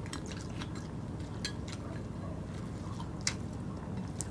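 Close-miked eating sounds of rice and canned tuna being chewed: soft wet mouth clicks and smacks, a few sharp ones scattered through, the clearest about three seconds in, over a low steady hum.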